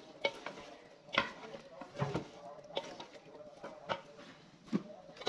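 Metal ladle stirring potato curry in a metal pot, knocking and scraping against the pot about once a second.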